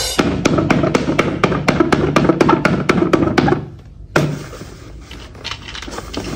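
A rapid, even run of sharp taps, about five a second, over a low hum. They break off a little after three and a half seconds; a single hard knock follows about four seconds in, then fainter taps.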